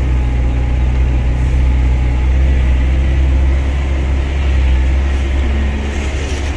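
Car engine and road noise heard from inside the cabin while driving uphill: a steady low drone that eases slightly about five seconds in.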